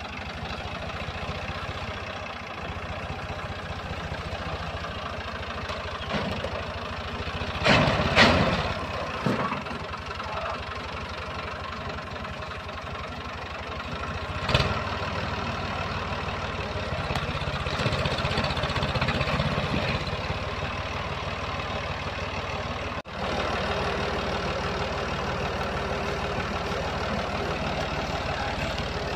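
Ford 4000 tractor engine running steadily under load as it pulls a heavily loaded log trailer out of mud. A burst of loud sharp cracks comes about eight seconds in, and another single crack a few seconds later.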